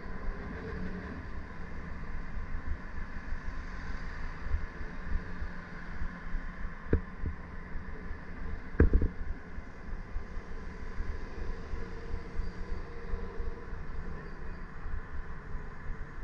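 Wind buffeting the camera microphone on a moving bicycle, over a steady hum of city traffic. Two sharp knocks come about two seconds apart, the second the loudest.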